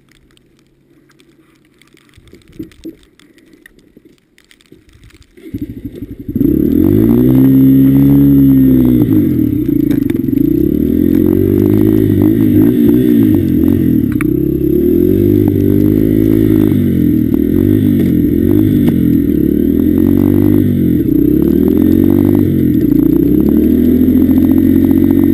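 Honda CRF150F dirt bike's single-cylinder four-stroke engine. After a few quiet seconds with some knocks, it catches about six seconds in, then runs loudly with the revs rising and falling over and over.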